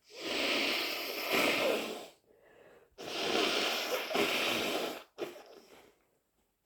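A person blowing a stuffed, snotty nose hard into a tissue twice, each blow lasting about two seconds.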